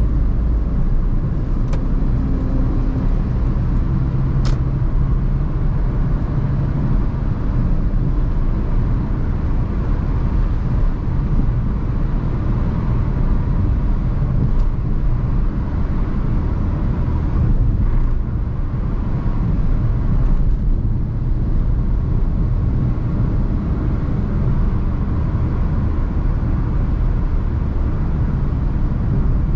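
Maruti Suzuki Swift Dzire car driving: a steady low rumble of engine and road noise.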